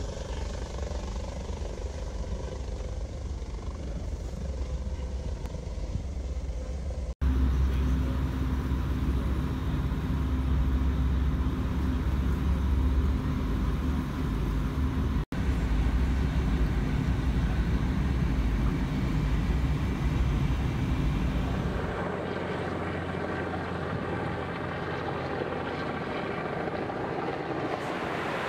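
Engine noise in clips joined by abrupt cuts. First comes a Coast Guard helicopter's rotor over the water. Then, from about 7 to 22 s, a louder deep steady engine rumble with a low hum from a tugboat working alongside. In the last few seconds the rumble drops away to wind and water noise.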